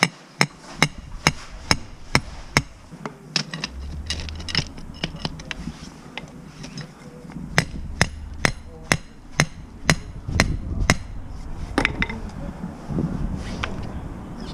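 Short-handled sledgehammer driving stakes into the ground at the edge of a gravel base, setting grade height for a string line. The sharp, ringing blows come in quick runs of about two a second with pauses between, and a low steady hum sounds in the middle.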